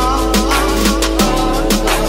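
Electronic dance music with a steady fast beat over a deep, held bass line, which drops to a lower note about a second in.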